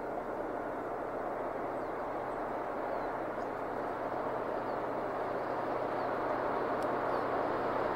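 Diesel locomotive hauling a freight train approaching, its engine running steadily with a low hum and growing gradually louder.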